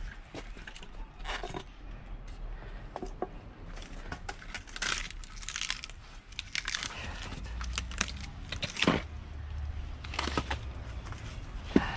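Scattered knocks and clatter of split firewood and tools being handled during wood splitting, with a sharp knock near the end.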